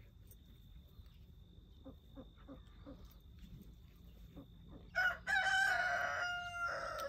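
A rooster crowing about five seconds in: a loud call held for about two seconds that drops in pitch at the end.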